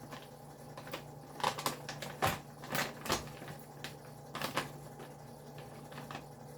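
Irregular light clicks and taps, about half a dozen bunched in the middle, from frozen berries and their plastic bag being handled as the berries are set on top of a cake. A faint steady low hum runs underneath.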